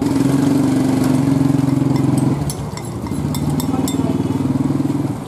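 A small engine running steadily close by, easing off about two and a half seconds in and then picking up again. Light crackles of oil frying in a pan sound over it.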